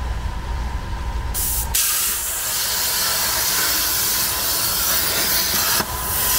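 CNC plasma table cutting 16-gauge aluminium sheet. A lower hum comes first, then the plasma torch fires about a second and a half in and cuts with a loud, steady hiss.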